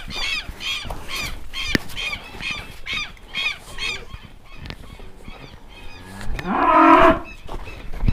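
A cow mooing once, a short loud call rising in pitch about six seconds in. Before it, a bird calls over and over, two or three times a second, with a few light knocks.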